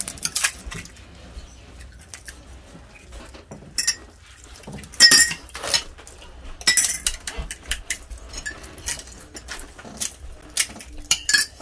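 Irregular clinks and taps of spoons against ceramic plates and small glass cups as pani puri shells are filled, with the sharpest clinks about five and seven seconds in.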